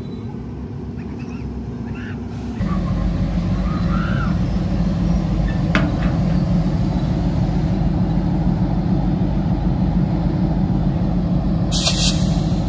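Diesel locomotive's engine running with a steady low hum as it creeps past at close range. The hum gets louder about two and a half seconds in. There is a single sharp click about six seconds in and a short, loud hiss near the end.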